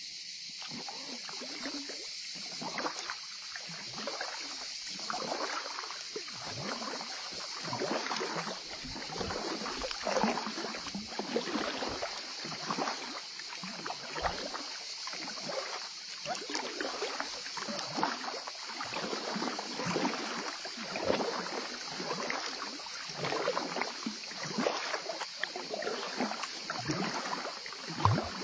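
Kayak paddle strokes dipping into calm water, with splashes and dripping from the blades coming again and again at an uneven pace, over a steady high hiss.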